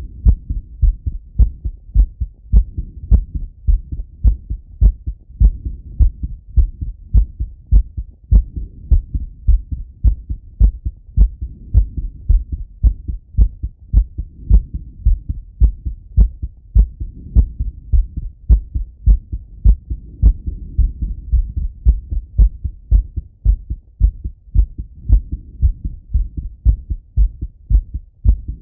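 A man's heartbeat heard through a Littmann stethoscope on his chest after an exercise set: a steady, even run of low heart beats, with a low rushing noise between them that swells and fades.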